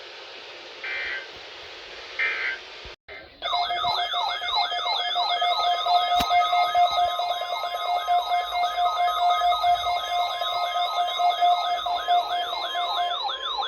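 Two short buzzy digital data bursts, the Emergency Alert System's end-of-message code, then after a brief dropout a weather radio warning alarm. The alarm is an electronic siren-like warble of falling pitch sweeps, about two and a half a second, over a steady tone, lasting about ten seconds and cutting off near the end.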